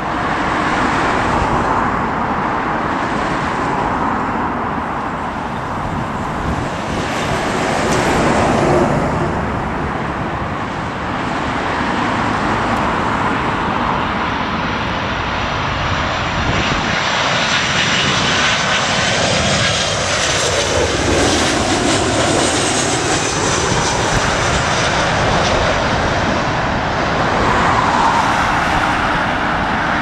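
Boeing 737 jet airliner passing low on landing approach, with a steady jet rumble. From about halfway a high engine whine builds, then slides down in pitch as the aircraft goes by. Strong wind buffets the microphone throughout.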